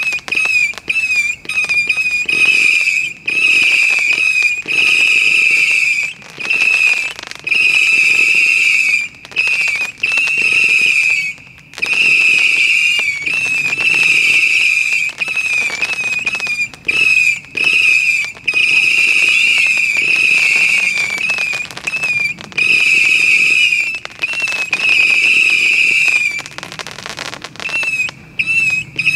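Zeus Megatronix fireworks cake firing rapidly: a near-continuous shrill, wavering whistle from many small whistling tails, breaking off briefly every second or two, with quick pops among them.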